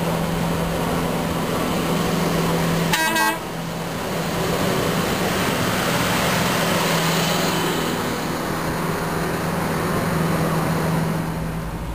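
A rail ballast spreader's engine running as it rolls past, with one short high toot of its horn about three seconds in, followed by the noise of the machine passing close by and fading away.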